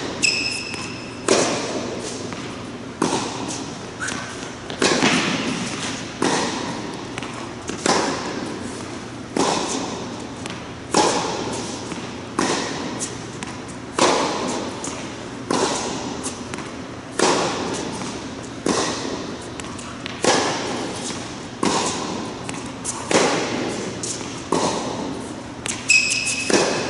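Tennis balls struck by rackets in a steady baseline rally, a sharp pop about every second and a half, with ball bounces between hits. Each hit echoes in the large indoor tennis hall.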